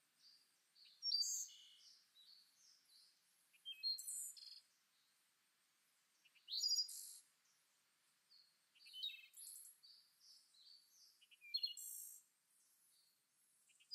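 A songbird singing: a phrase of quick high whistles and trills about every two and a half to three seconds, with softer chirps in between.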